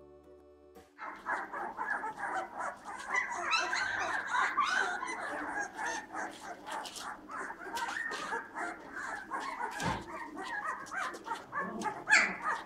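A litter of two-week-old Bernese mountain dog puppies whining and yelping together, many short high cries overlapping, starting about a second in.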